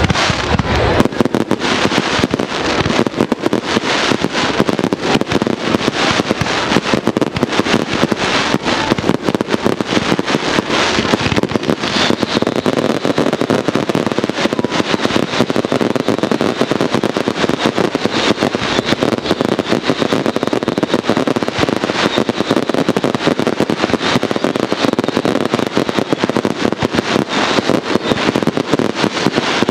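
Fireworks display in full barrage: aerial shells bursting overhead and crackling gold effects, many sharp bangs a second with no let-up.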